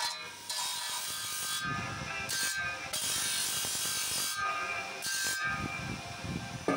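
Cast brass horse figure being ground against a spinning abrasive disc on a motor-driven grinder: a rasping grind that breaks off and starts again several times as the metal is pressed on and lifted away.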